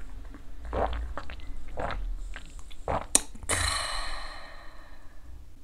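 A man swallowing a shot of soju: a few short mouth and swallowing noises, then a sharp smack about three seconds in and a long breathy exhale after the drink.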